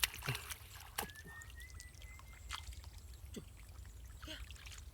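Water trickling and dripping, with scattered small plops and clicks.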